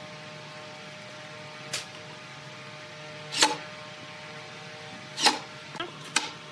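A few short knocks and clatters of hardware and a cordless driver being handled against a wooden shutter panel, the two loudest about three and a half and five seconds in, over a steady low hum.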